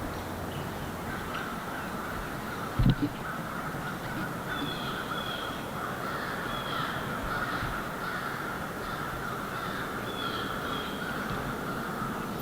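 Crows cawing in the woods, with a dull double thump about three seconds in.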